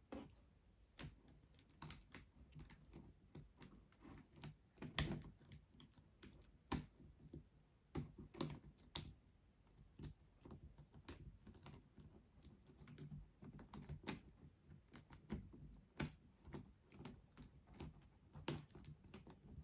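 Faint, irregular clicks and knocks of plastic 4x4 Rubik's Cube pieces being handled and pushed into place in the half-assembled cube, with a louder knock about five seconds in.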